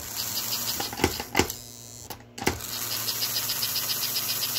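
American Flyer 287 toy steam locomotive's electric motor and gearing running free in the hand, with a fast even ticking of about six a second over a low hum. It cuts out for about a second near the middle, with sharp clicks either side, then runs on.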